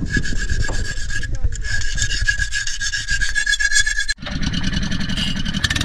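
Small engine running with a rough, rasping rattle and a steady high whine. A sudden break about four seconds in is followed by a faster, rougher rattle.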